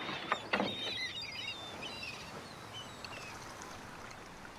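Small birds chirping in quick wavering calls through the first half, over a steady faint outdoor hiss. Two thumps come about half a second in.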